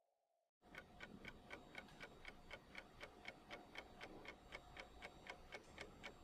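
Faint, fast, even clock-like ticking, about four ticks a second, starting abruptly just over half a second in, over a faint steady hum.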